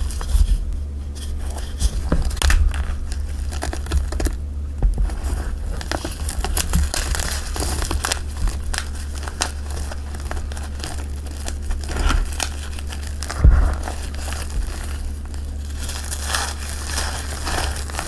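Blocks of gym chalk and cornstarch being crushed and crumbled by hand: a dense, irregular run of crisp crackles and crunches, with a couple of heavier crunches about thirteen seconds in, over a steady low hum.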